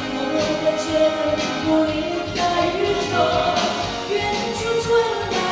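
Music: a Mandarin pop ballad, a sustained melody line with singing over steady accompaniment.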